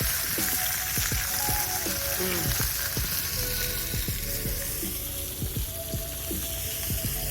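Fish frying in hot oil in a pan: a steady sizzle with frequent crackles and pops.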